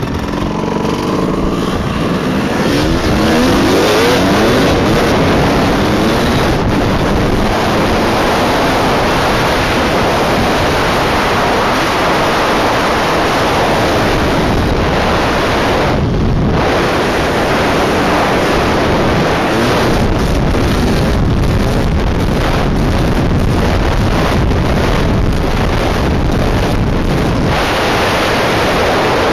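Suzuki RM250 two-stroke dirt bike engine under hard riding, heard from the rider's helmet camera, with its pitch climbing as it revs up a few seconds in. Heavy wind rush on the microphone covers it, and the sound dips briefly about halfway through.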